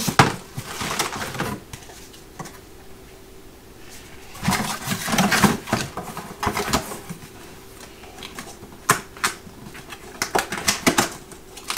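Cardboard box and packaging being handled as the sander's parts are packed back into the box. Scattered rustles, clicks and knocks come in clusters, with a faint steady hum underneath.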